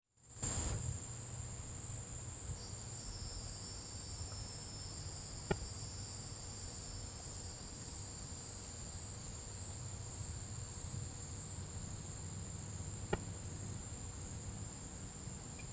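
Steady high-pitched chorus of night insects, with two sharp clicks about five and thirteen seconds in.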